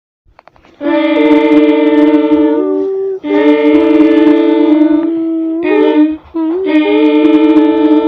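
A person imitating a diesel locomotive's horn with the voice, holding chords of several steady notes. Three long blasts and one short one come in the long-long-short-long pattern of a grade-crossing warning, the last still sounding at the end.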